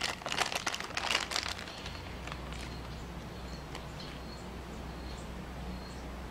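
Clear plastic bag crinkling as it is handled and opened, for about the first two seconds. After that a low steady hum remains, with a few faint, short high chirps.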